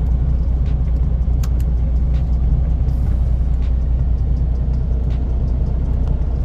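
Semi-truck's diesel engine running, heard inside the cab as a steady, heavy low rumble.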